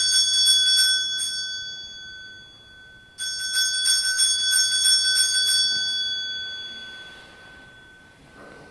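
Altar bells (a cluster of small sanctus bells) shaken at the elevation of the consecrated host: one peal ends about a second in, and a second peal starts sharply about three seconds in and rings out, fading over the next few seconds.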